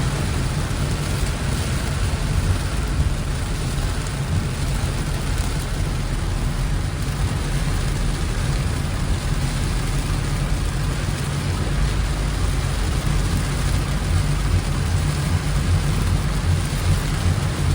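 Steady low rumble of a moving vehicle's engine and tyres, with rain falling.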